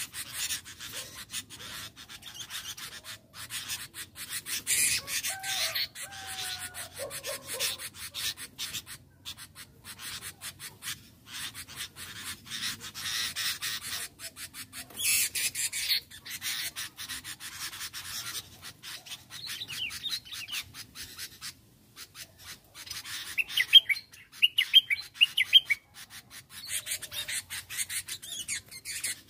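Bulbuls calling: a few short gliding calls about five seconds in, then a louder run of quick, sharp calls near the end, over a continuous crackling rustle.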